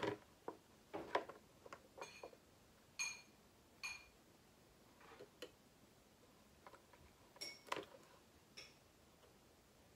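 Faint scattered clicks and taps of small plastic wire connectors and leads being handled and pushed together, a few with a brief high ring.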